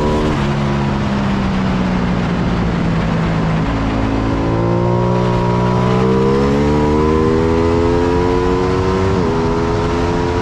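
Ducati Panigale V2's 955 cc V-twin under way on a race track, recorded on board with heavy wind rush. The engine note drops with an upshift about half a second in, sags through a corner, then rises steadily under hard acceleration from about four seconds in before dropping again at another upshift near the end.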